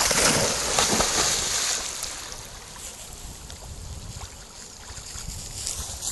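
A dog splashing as it runs into shallow lake water. The splashing is loudest for the first two seconds, then eases to softer water sounds as the dog swims out.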